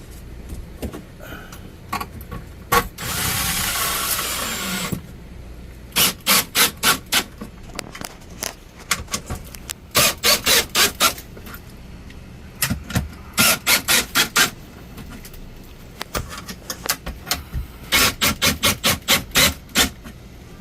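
Installation tool work: a hiss lasting about two seconds, three seconds in, then four separate runs of rapid, evenly spaced clicks, each run about a second or two long.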